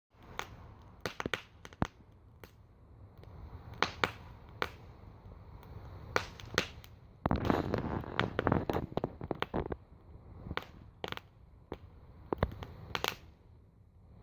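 Wood campfire burning in a steel wheel-rim fire pit, crackling with sharp scattered pops over a low rumble. About seven seconds in there is a louder rushing stretch of a couple of seconds before it settles back to crackling.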